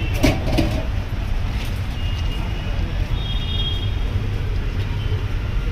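Steady low rumble of street traffic, with two sharp clicks near the start.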